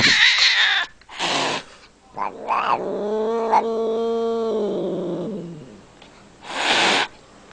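An angry white Scottish Fold cat threatening. It gives short hisses near the start, about a second in, and near the end. In the middle is one long, low growling yowl that holds steady and then falls in pitch.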